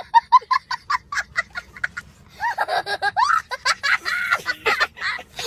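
High-pitched laughing sound effect: a quick run of short 'ha' sounds, about five a second, for the first two seconds, then longer laughs that rise and fall in pitch.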